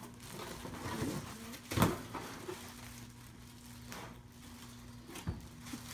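Handling noise from a boxed Funko Pop figure and its packaging, with a sharp knock about two seconds in and a smaller one near the end, over a steady low hum.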